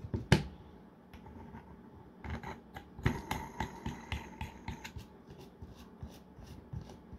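Hands fitting together the plastic parts of a 3D-printed brushless motor, the rotor going into the stator and the top cap pressed on: a knock right at the start, then scattered light clicks and taps, busiest about halfway through.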